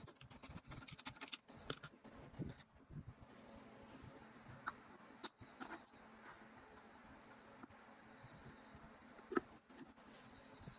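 Faint, scattered small clicks and scrapes of hand work opening a plastic LED light bulb, with one sharper click about nine seconds in. A faint steady high-pitched tone sits underneath.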